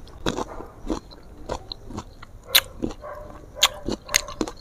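Close-up crunchy chewing and biting of raw green mango: a string of sharp, irregular crunches, about eight or nine across the few seconds.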